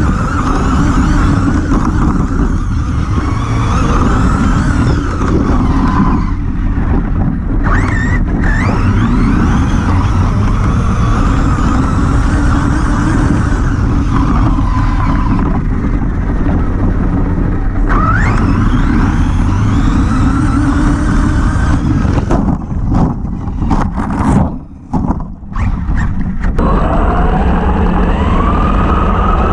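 Arrma Typhon 3S RC buggy running, its brushless motor whining up and down in pitch as it speeds up and slows, over a steady low rumble. The sound dips out briefly several times about three quarters of the way through.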